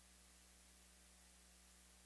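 Near silence: a faint, steady low hum with hiss, unchanging throughout.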